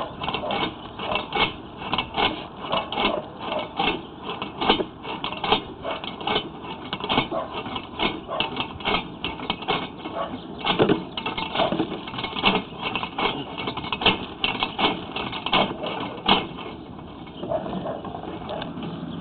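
Sewer inspection camera push cable being fed down a clay sewer line, rattling and clicking irregularly, several knocks a second over a steady hiss; the clicking stops about sixteen seconds in.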